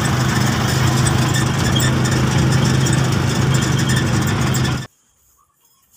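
Vehicle engine running steadily with a constant hum, heard from inside the vehicle. It cuts off suddenly about five seconds in.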